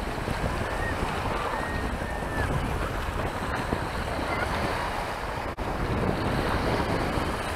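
Wind buffeting the microphone over choppy sea water washing at the shoreline, a steady rushing noise.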